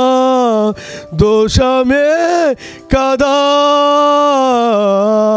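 A man singing a slow devotional hymn solo into a handheld microphone. He draws out long held notes with short breaks between phrases, and one long note carries through the second half.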